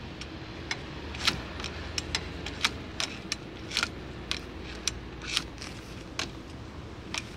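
Two-way ratcheting angle-adjustment hinge clicking as its metal arm is worked by hand: a run of sharp, irregular clicks, about two a second. Each click is the hinge stepping forward once its load is released; under load it locks and stops.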